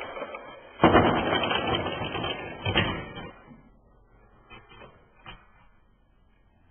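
Rube Goldberg machine parts clattering: a sudden loud rattle of knocking and rolling objects starts about a second in and lasts a couple of seconds, with one sharp knock near its end, then a few light clicks.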